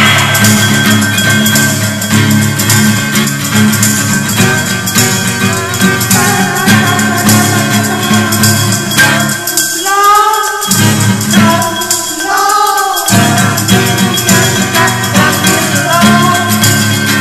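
Upbeat background music with a steady beat. The bass drops out for a few seconds about ten seconds in, while a higher melody carries on.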